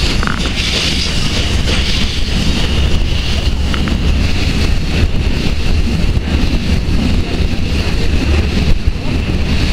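Historic steam-hauled train running along the track, with a steady low rumble, heard from beside the locomotive with wind buffeting the microphone.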